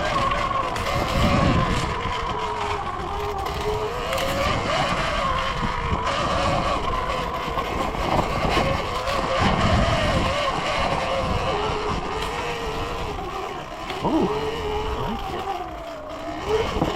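Surron Ultra Bee electric dirt bike's motor whining while riding, its pitch rising and falling with the throttle, over a low rumble.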